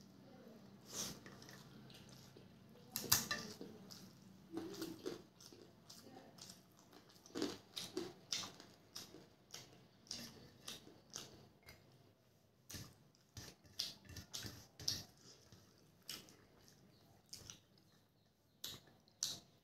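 Close-up eating by hand: crisp papad being bitten and chewed with many sharp crunches, the loudest about three seconds in, between softer chewing and fingers working rice on a steel plate.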